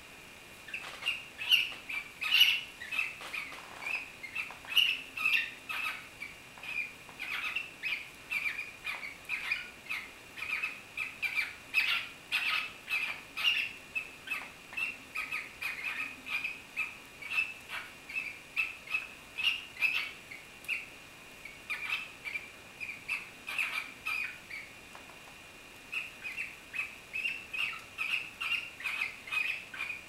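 Pair of cockatiels calling during mating: a fast, continuous run of short, high squeaky chirps, about three a second, with one short pause late on.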